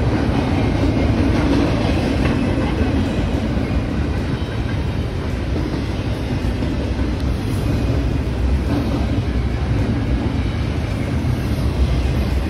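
BNSF double-stack intermodal freight train passing at close range, its container cars running steadily over the rails with a continuous loud rumble of wheels on track.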